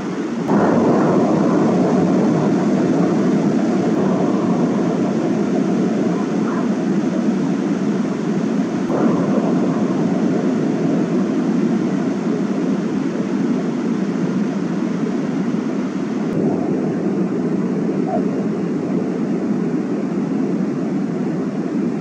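River water rushing over a low concrete step, a steady, loud whitewater rush.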